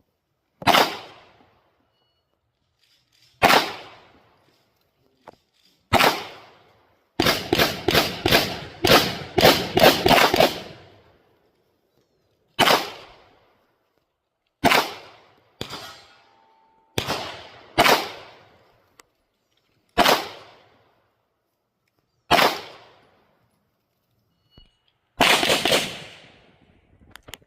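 Canik TTI Combat 9mm pistol firing. Single shots come a few seconds apart, then a quick string of about ten shots in the middle. More single shots follow, and a fast pair near the end.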